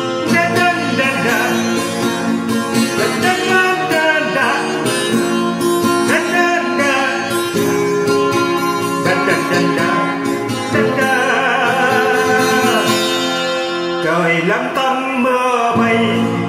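Instrumental music with acoustic guitar and a lead melody line that slides between notes; the song's first sung lines have not yet begun.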